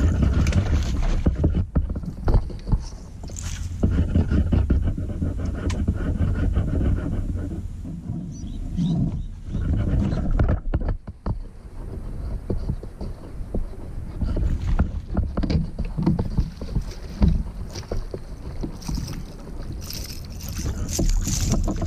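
Wind rumbling on the microphone over water lapping against a kayak hull, with scattered small knocks and clicks.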